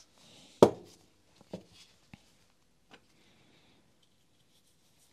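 Paper napkin rustling on a metal workbench, with one sharp knock a little over half a second in and three lighter knocks over the next two and a half seconds as metal rotary hammer parts are handled and set down.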